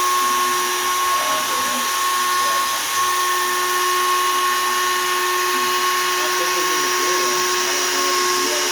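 Shapeoko 3 XL CNC router's spindle running at 20,000 rpm with a 1/8-inch two-flute downcut spiral bit cutting poplar: a steady high-pitched whine over a hiss.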